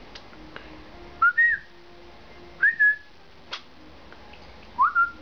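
A person whistling three short notes, each sliding up and then holding briefly, spaced about a second and a half apart, the kind of whistle used to call a dog's attention. A faint sharp click falls between the second and third notes.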